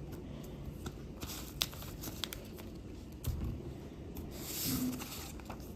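A sheet of paper being handled and folded for a paper airplane: soft rustling and crinkling with scattered small ticks, a dull thump about three seconds in, and a louder rustle near the end.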